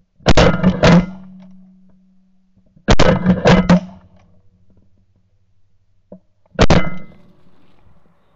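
Shotguns firing at snow geese overhead in three quick volleys of several shots each: about a second in, about three seconds in, and near seven seconds. Each shot is loud and sharp, with a short ringing tail.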